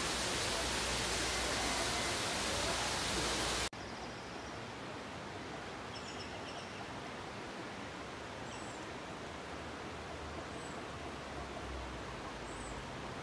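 Steady outdoor noise, an even hiss, which cuts off abruptly a few seconds in to quieter open-air ambience. Four or five faint, short, high bird chirps sound over the quieter part.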